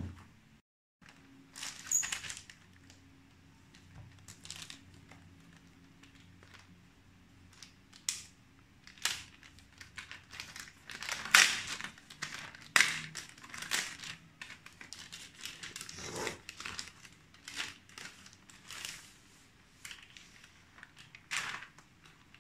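Thin plastic protective bag crinkling and rustling in irregular bursts as a laptop is handled inside it and slid out.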